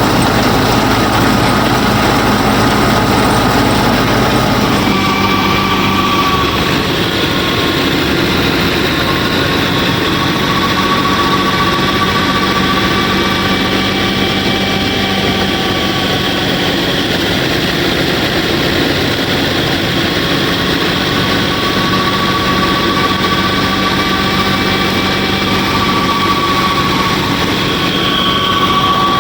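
Small motor of a DIY miniature combine harvester running steadily, with a held hum and whine; the pitch and tone shift about five seconds in.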